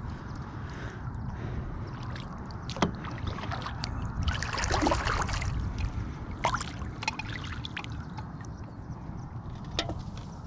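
Water splashing and dripping around a pirogue as a dead duck is lifted out of the water and laid in the boat, with a few sharp knocks on the hull. The splashing is loudest about halfway through, over a steady low rumble.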